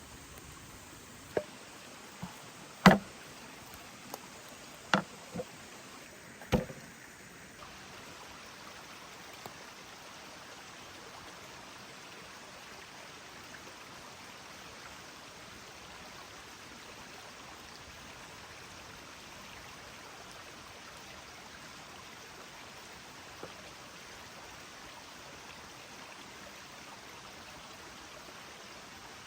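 A handful of sharp knocks in the first seven seconds, the loudest about three seconds in, over a steady rushing noise that then runs on alone.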